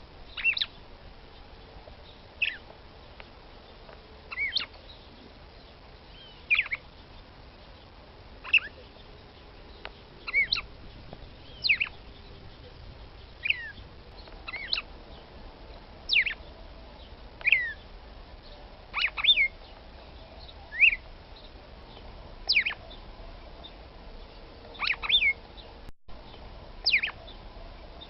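Red-cowled cardinal (Paroaria dominicana) female giving short, sharp call notes that fall in pitch, one every one and a half to two seconds, a few of them doubled. It is the female's call for stirring up a male.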